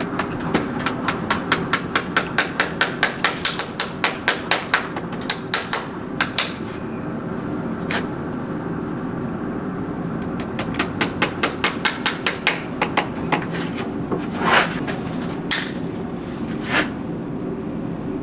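Farrier's hammer tapping in quick runs of about four to five light strikes a second, with a pause between the runs and a few single louder knocks near the end, over a steady background hum.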